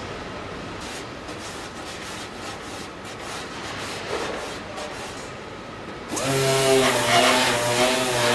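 Steady factory hum with light scraping and clicks of a hand tool worked over an aluminium body panel. About six seconds in, a handheld disc sander starts abruptly and runs loud against the aluminium, its pitch wavering slightly.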